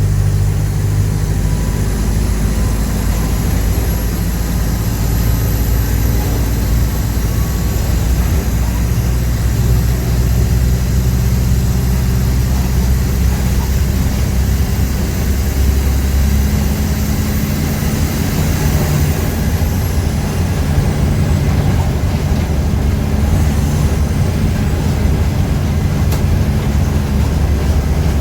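Mercedes-Benz OF-1418 bus's diesel engine running steadily under way, its low drone shifting in pitch a couple of times. A faint high whine rises slowly, then falls away about two-thirds of the way through.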